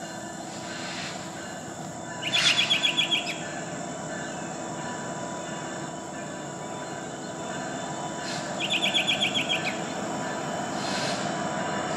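A songbird sings two quick phrases of about eight bright repeated notes, each lasting about a second, over the steady low rumble of approaching Norfolk Southern SD70ACU diesel locomotives, which grows a little louder near the end.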